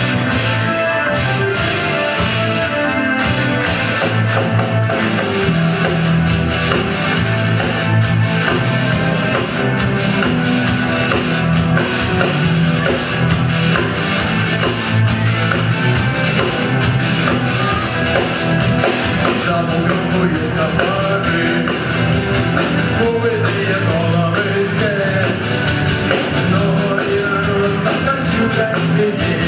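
Rock band music with guitar, and a steady drum beat that comes in clearly about six seconds in.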